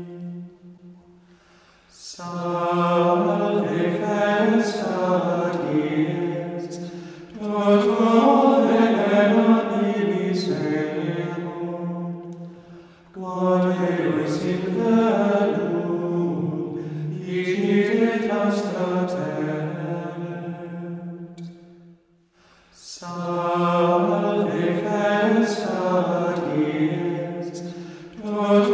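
Gregorian chant hymn, sung in long phrases with brief pauses between them: one just after the start, one about halfway and one a few seconds before the end.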